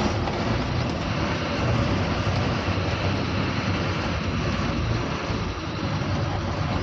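Heavy goods lorry's diesel engine running steadily as the truck moves off slowly and turns, heard from inside the cab.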